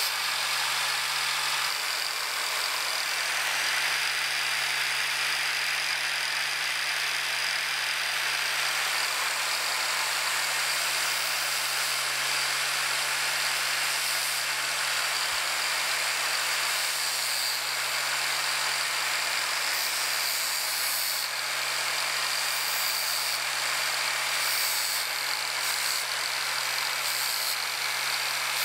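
Old drill press running steadily with a low motor hum while drilling steel pieces.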